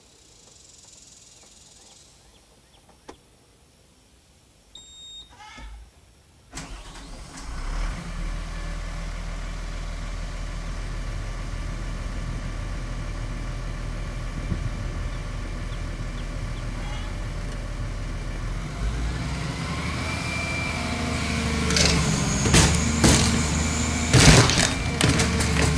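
Volvo EC210CL excavator's diesel engine starting up about six seconds in and running steadily, growing louder and revving up in pitch. Near the end, loud sharp clanks and knocks of the excavator working.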